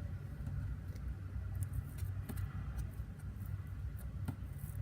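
Hands working fluffy slime to blend in food colouring: scattered soft clicks and pops from the slime over a steady low hum.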